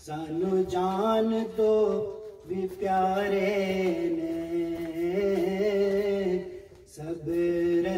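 A man singing an Urdu naat, a devotional poem in praise of the Prophet, unaccompanied, in long drawn-out notes, pausing briefly for breath about two and a half seconds in and again near the end.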